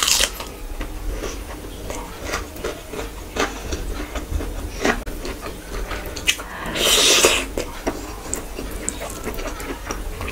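Close-miked chewing and wet mouth clicks of a person eating rice and meat curry by hand, with one longer, louder noisy sound about seven seconds in.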